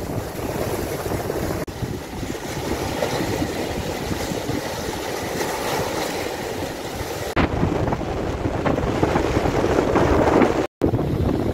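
Waves breaking and washing over seaweed-covered shore rocks, with wind rumbling on the microphone. The sound changes abruptly a few times and drops out briefly near the end.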